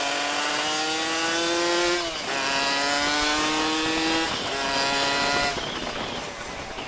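Yamaha 125Z two-stroke single-cylinder engine, fitted with a Cagiva Mito 125 exhaust, accelerating hard. Its pitch rises, it drops briefly at two upshifts about 2 and 4 seconds in, and then the throttle closes about 5.5 seconds in and the engine note fades.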